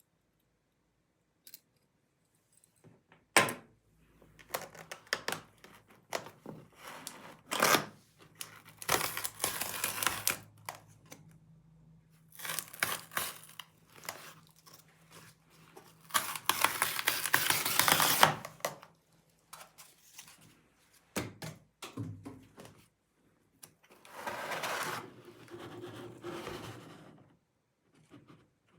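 A laptop's cardboard box and paper wrap being torn open and handled. There are several stretches of tearing and rustling, the longest about two-thirds of the way in, with knocks and thuds between them. A faint low hum runs beneath the first part.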